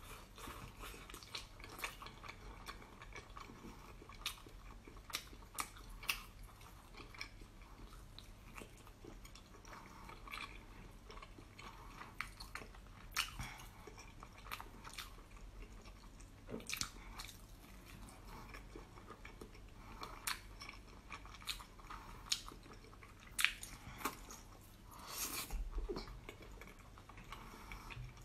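A person chewing and biting soft, sauce-covered food close to the microphone, with irregular wet mouth clicks and smacks throughout and a longer noisy sound about 25 seconds in.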